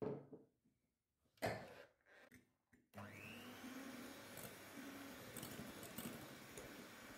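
A few short knocks, then about three seconds in an electric hand mixer switches on, its motor whine rising briefly as it spins up. It then runs steadily, the beaters whisking eggs and sugar.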